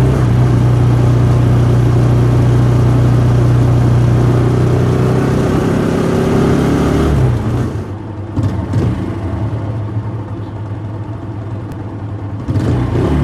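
TVS Apache RTR 160 4V's single-cylinder four-valve engine held at steady raised revs for about seven seconds, then dropping back to a lower, quieter idle. It picks up again in a short rev near the end.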